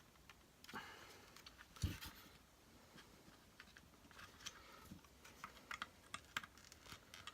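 Faint scattered clicks and taps of small plastic and metal vacuum-cleaner motor parts being handled during disassembly, with one dull knock about two seconds in.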